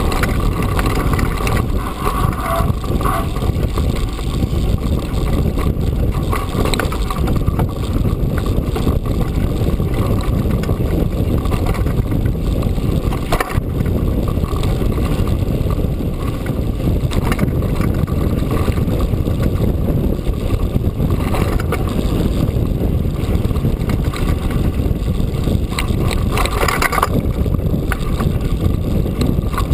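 Steady rumble of wind and tyre noise picked up by a GoPro HD camera riding on a full-suspension Trek Fuel EX9 mountain bike, with scattered knocks and rattles as the bike rolls over a bumpy grass-and-stone track.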